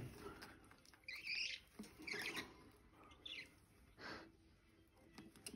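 Young budgerigars giving a few faint, short chirps and squeaks, about one a second.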